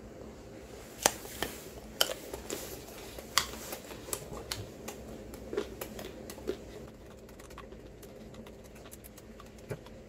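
A run of sharp clicks and light taps, loudest in the first few seconds, thinning to a few faint ticks after about seven seconds.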